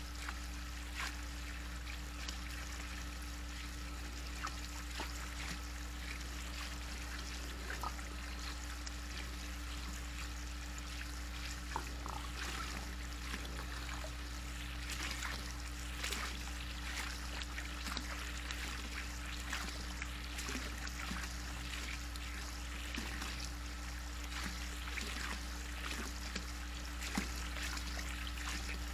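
Pool water trickling and lapping, with small irregular splashes and drips as raccoons drink and dip their paws at the water's edge. A steady low hum runs underneath.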